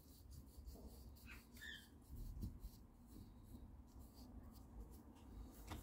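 Near silence: faint outdoor background with a low rumble and a few light scratches and clicks.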